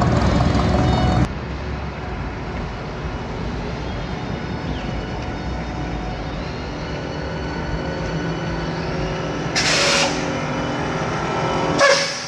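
A Chevrolet Impala SS's engine running for about a second, then after a cut a classic Chevrolet pickup's engine running as it drives up close. Two short hisses come near the end.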